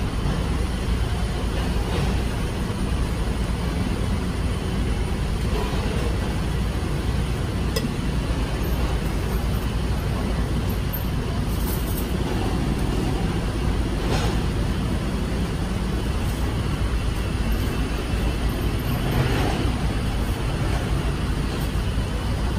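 Steady traffic rumble and street noise, with a few faint knocks now and then.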